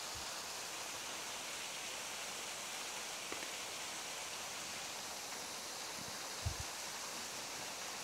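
Faint, steady rush of a small waterfall, an even hiss with no rhythm. A brief faint low thump sounds about six and a half seconds in.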